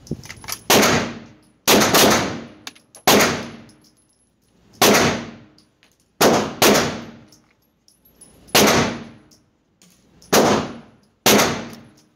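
9mm pistol shots, about ten, unevenly spaced with one quick pair about half a second apart, each ringing off the hard walls of an indoor range. The shooter is firing the Arex Rex Delta in double taps from the holster, and the slide locks back on an empty magazine after the last one.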